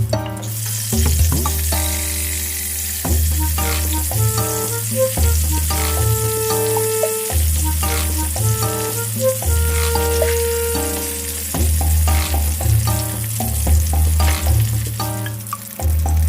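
Tofu frying in hot oil, a steady sizzle, under background music with a bass line and a melody.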